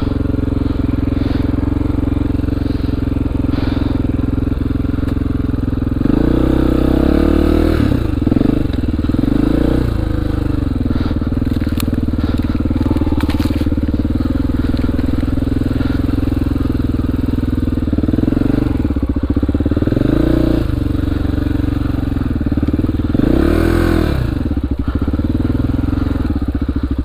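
2002 Honda XR400R's single-cylinder four-stroke engine running steadily at low revs. The revs rise and fall briefly three times: about six to ten seconds in, around nineteen to twenty-one seconds, and near twenty-four seconds.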